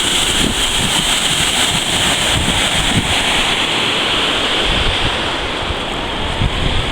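Wilge River waterfall: a loud, steady rush of falling water, with wind buffeting the microphone in irregular low gusts.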